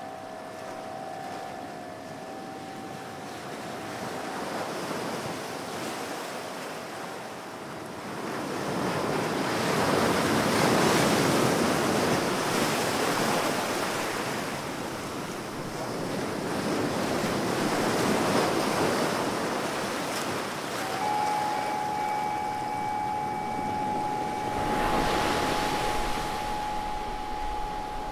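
Ocean surf washing in slow swells that rise and fall every several seconds. Steady sustained tones fade out over the first several seconds, and another steady tone enters about two-thirds of the way through.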